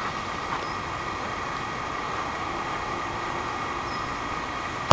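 A football kicked once, a sharp thud at the very end, over a steady background hum.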